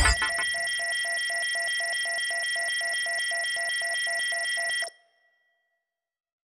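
Electronic synthesizer tones closing out a dub track: several steady high tones with a beep pulsing about four times a second. They cut off suddenly about five seconds in.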